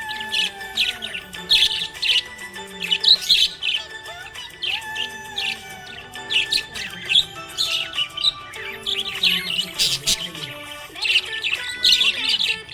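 Budgerigars chirping and chattering in quick clusters of short, high chirps, over background music with held notes.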